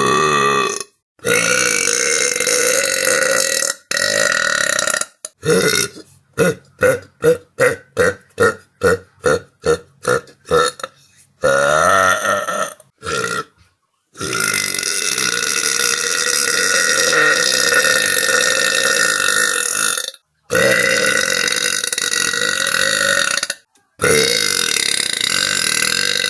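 Burps, one after another, separated by abrupt cuts. In the middle comes a rapid string of short burps, about two or three a second. Near the middle there is one long burp held for about six seconds.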